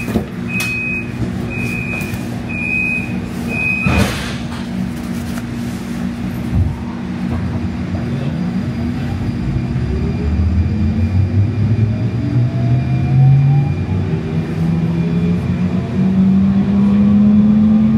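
Door-closing warning beeps on a Siemens S70 light rail train, four evenly spaced high beeps, end in a thump as the doors shut about four seconds in. The train then pulls away, its traction motors whining in tones that climb in pitch as it speeds up.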